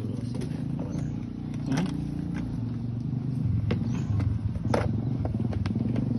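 A motor engine running steadily with a low hum, with scattered clicks and scrapes over it.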